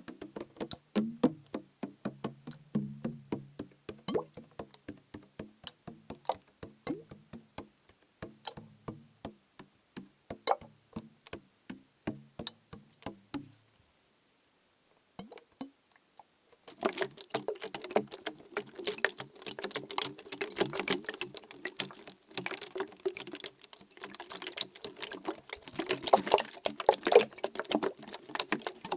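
Plastic bottle of liquid being tapped, a steady run of taps each ringing with a low tone. After a short pause it is shaken, the liquid sloshing inside with dense clicking.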